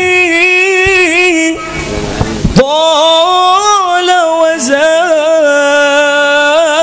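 A man singing a slow Arabic devotional sholawat line solo through a microphone, holding long drawn-out notes with wavering ornaments. He breaks off about a second and a half in and picks the line up again about a second later.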